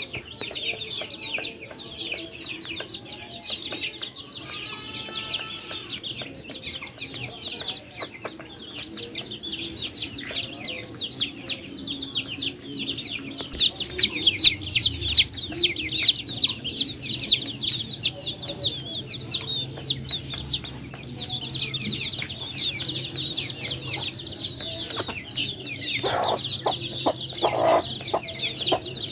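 A flock of chicks peeping continuously, many short high calls overlapping, with a few lower calls near the end.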